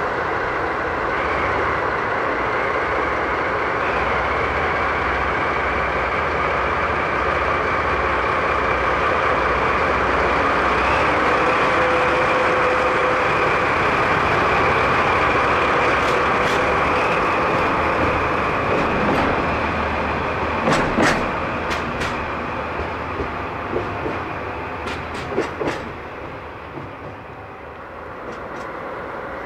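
DD51 diesel-hydraulic locomotive with twin V12 diesel engines running loudly as it moves past close by, hauling a Hoki 800 ballast hopper wagon. From about halfway, a series of sharp wheel clicks over rail joints comes as the wagon goes by, and the engine sound fades near the end.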